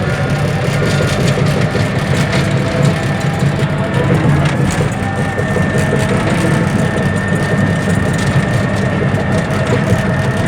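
Bulldozer's diesel engine running steadily under load, heavy and low, with a thin high whine over it from about four seconds in.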